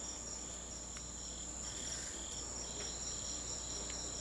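Insects chirping in a steady chorus: a continuous high trill with shorter chirps repeating over it, and a low steady hum underneath.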